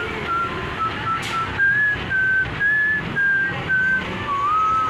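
A person whistling a tune: a run of clear single notes, some short and some held, about two a second, with a short upward slide near the end.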